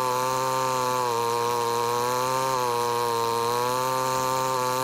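Stihl MS 881 two-stroke chainsaw running at high revs as it cuts through a large log, a steady buzz whose pitch dips and recovers slightly under load.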